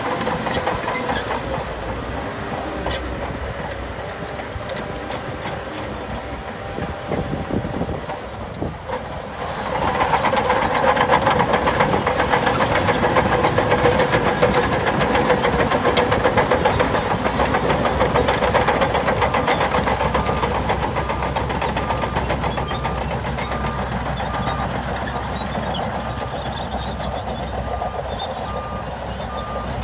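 Diesel engines of heavy earthmoving machinery working. The engine noise rises sharply to a heavier load about a third of the way in. A reversing alarm starts beeping steadily about two-thirds of the way in.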